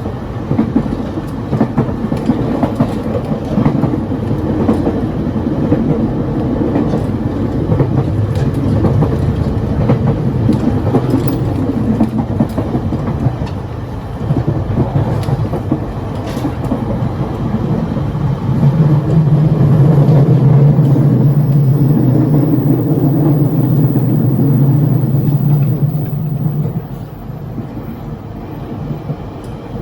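Running noise in the gangway between cars of a Taiwan Railway EMU1200 Tze-Chiang express electric multiple unit: a steady rumble of wheels on rail, with scattered clicks and rattles. From about two-thirds of the way in, a louder low hum rises over the rumble, then drops away near the end.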